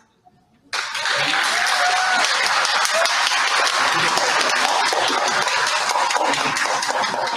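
Audience applauding, starting suddenly about a second in, with a few voices calling out over the clapping.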